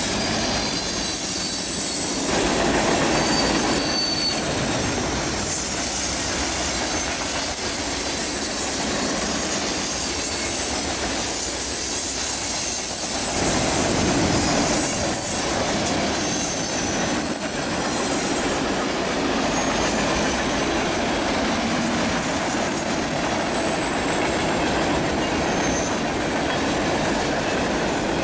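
Freight cars rolling past close by: a steady rumble of steel wheels on rail, with brief high-pitched wheel squeals here and there. The sound swells briefly about two seconds in and again about halfway through.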